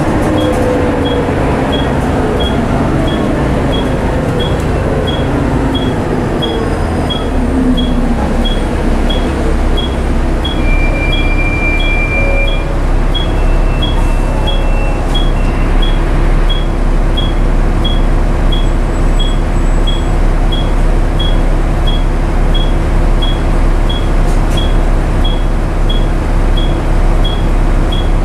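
Onboard sound of a Volvo B7TL double-decker bus's six-cylinder diesel engine running. Its pitch falls over the first several seconds as the revs drop, then it runs steadily. A regular tick about one and a half times a second sounds throughout.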